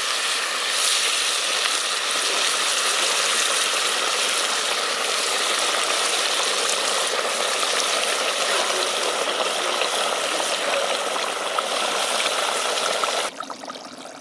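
Near-boiling water pouring in a steady stream from an electric kettle, splashing over a knife blade into a hot cast-iron pot of fried meat and carrots. It cuts off suddenly near the end.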